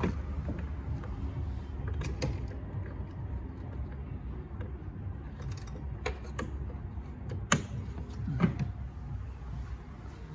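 Scattered sharp clicks and knocks of plastic interior trim pieces and electrical connectors being handled and snapped back into place in a Jaguar F-Pace, over a low steady rumble. The loudest clicks come about three quarters of the way through.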